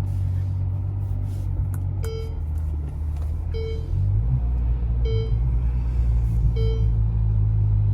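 Exotic sports car engine running at low speed, a steady deep drone that swells slightly about four seconds in. A short in-car warning chime repeats about every one and a half seconds over it.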